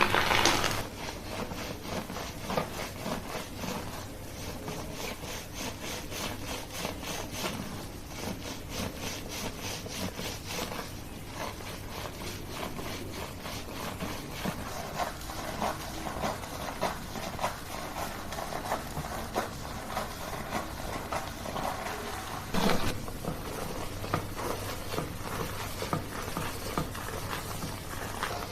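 Hands rubbing and scrubbing hair and scalp during a shampoo: a steady run of quick rubbing strokes, with a short louder burst about three-quarters of the way through.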